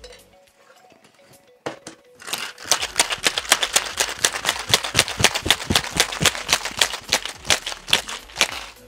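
Ice rattling hard inside a two-piece copper cocktail shaker as a drink is shaken, a fast steady clatter lasting about six seconds. It is preceded by a single knock about two seconds in.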